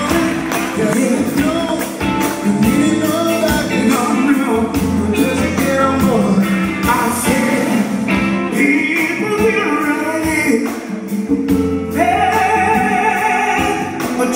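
Live band music with male voices singing over electric guitars and drums.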